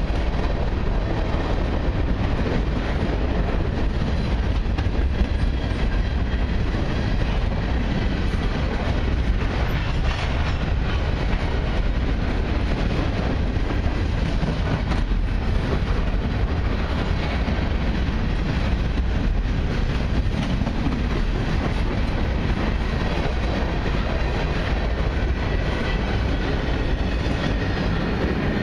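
CN freight train's covered hopper cars rolling past close by: a steady noise of steel wheels running on the rails.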